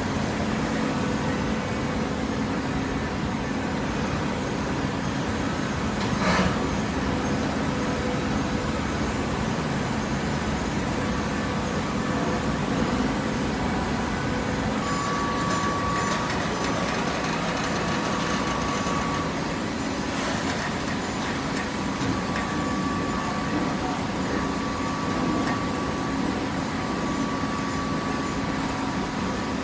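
Vertical hydraulic baler's electric motor and hydraulic pump running steadily with a low hum, a higher whine coming in for a few seconds at a time, and two sharp clanks.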